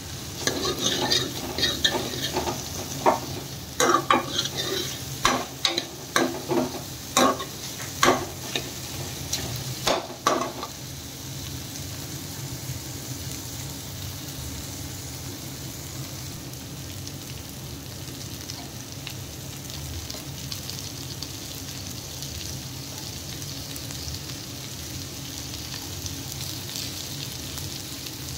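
A steel ladle stirring and scraping chopped onions and tomatoes frying in oil in a coated kadai, with irregular clinks of metal on the pan over a steady sizzle. After about ten seconds the stirring stops and only the sizzle of frying continues.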